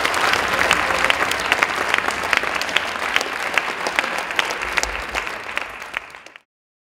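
Audience applauding with many hands clapping. The applause thins and fades toward the end, then cuts off abruptly a little over six seconds in.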